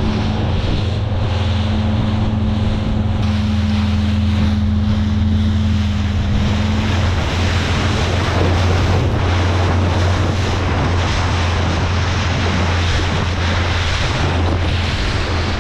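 Motorboat engine running at a steady pitch with a low hum, while wind buffets the microphone and water rushes past the hull as the boat moves.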